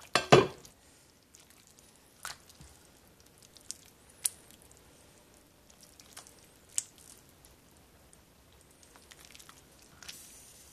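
A spoon stirring thick vegetable soup in a ceramic slow-cooker crock: quiet wet squishing and sloshing, with a few light clicks of the spoon against the pot. It opens with one louder knock.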